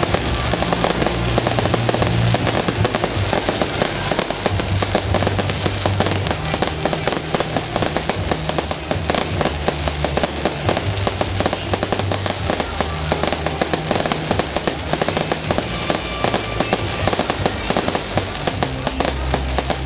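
Fireworks crackling in a rapid, unbroken stream of pops, over music with long-held low notes.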